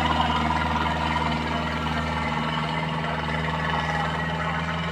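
Powertrac Euro 60 tractor's diesel engine running steadily under load while it pulls a tillage implement across the field, slowly fading as it moves away.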